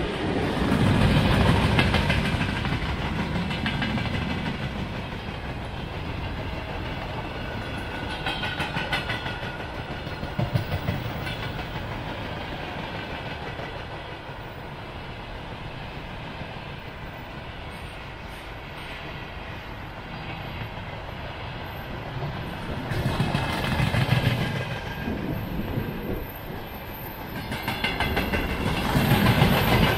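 A freight train passing close by: a two-section electric locomotive goes by first, loudest about a second or two in, followed by a long run of freight wagons rolling past with wheels clacking over the rail joints. The rumble eases off in the middle and swells louder twice near the end.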